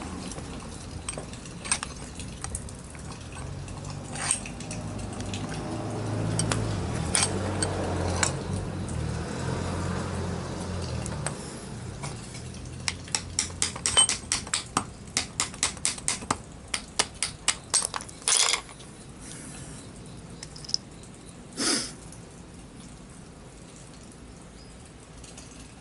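Metal clicks and taps of a wrench and brass valve parts being worked in a steel bench vise while an old valve is taken apart, with a quick run of clicks about halfway through and two short harsher sounds after it.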